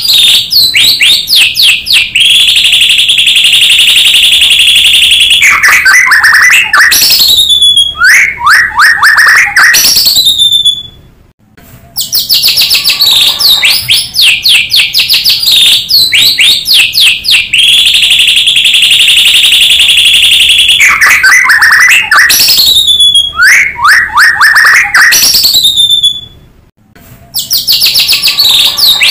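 White-rumped shama (murai batu) song, used as a lure recording: rapid trills, a long steady whistle, and sweeping downward notes. The same song sequence repeats as a loop, with a short break before each repeat.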